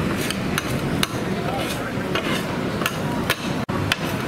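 Two metal spatulas scraping and clacking on a flat steel griddle as fried rice is stir-fried and chopped, in irregular clinks and scrapes.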